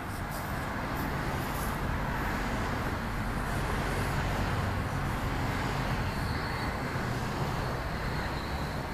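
Steady low machine hum under a constant rushing hiss, swelling slightly over the first few seconds.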